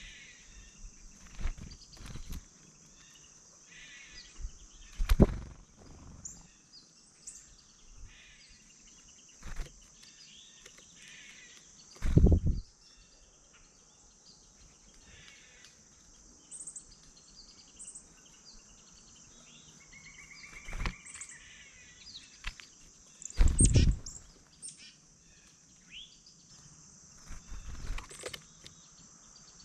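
Small birds chirping and calling on and off over a steady high insect drone, with a few loud low thumps scattered through.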